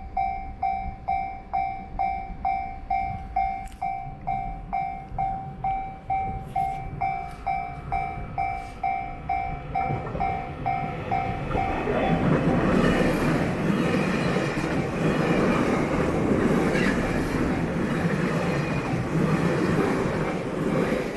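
Japanese railway level-crossing alarm bell dinging in an even two-tone beat about twice a second, then a train passes over the crossing from about twelve seconds in, loud enough to cover the bell until near the end.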